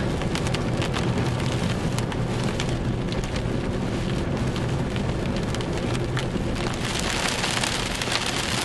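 Heavy rain hitting a car's windshield and roof in sharp ticks, over a steady low hum of engine and road noise; the rain grows louder about seven seconds in.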